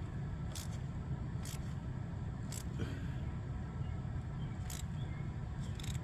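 Faint, scattered metallic clicks of hand tools on the engine, about five over the few seconds, during spark plug fitting. A steady low rumble runs underneath.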